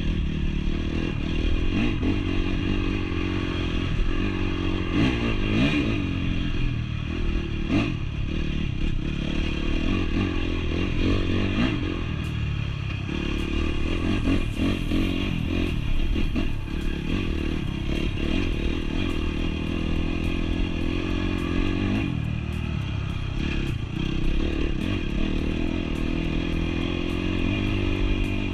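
Honda CRF off-road motorcycle engine running as it is ridden, its pitch rising and falling with the throttle, with scattered knocks and rattles from the bike.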